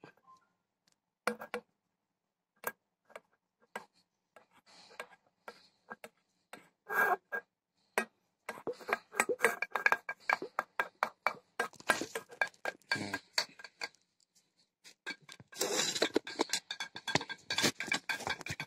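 Hands rubbing and scratching through hair, working in hair colour: a dry crackling and scratching in irregular bursts, sparse at first and busiest in the second half.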